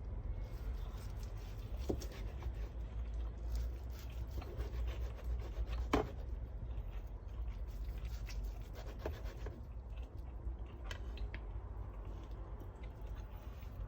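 Soft rubbing and scraping with scattered light clicks, the sharpest about six seconds in, over a steady low hum.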